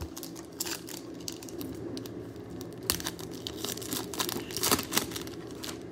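A trading card pack's plastic wrapper being torn open and crinkled: irregular ripping and crackling, loudest about three seconds in and again near five seconds.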